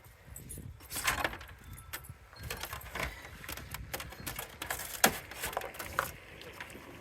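Metal parts of a soda vending machine clinking and clanking as it is taken apart by hand, with a string of sharp knocks, the loudest about a second in and again around five and six seconds in.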